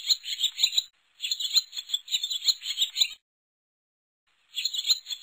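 Sound effect of rapid, high chirping animal calls in three bursts that start and stop abruptly, with dead silence between them: one ending about a second in, one running to about three seconds, and one starting again near the end.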